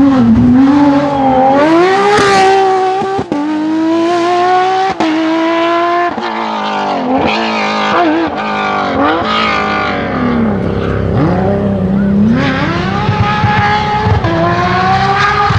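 Porsche 997 GT3 rally car's 3.6-litre flat-six at high revs, climbing in pitch under full throttle with quick sharp cuts at the upshifts of its sequential gearbox. In the middle the note wavers and falls as the car slows, then climbs hard again near the end.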